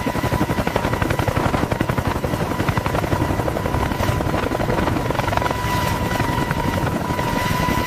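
Heavy helicopter in flight: fast, steady rotor-blade chop under a constant high turbine whine.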